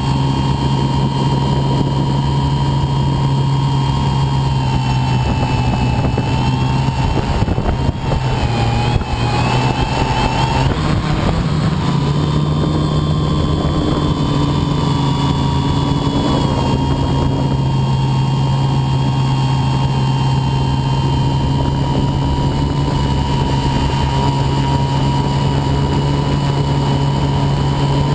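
Quadcopter's electric motors and propellers droning loud and close, heard through the onboard camera, at a steady pitch. The pitch wavers and shifts briefly about eight to eleven seconds in, with a short dip in loudness.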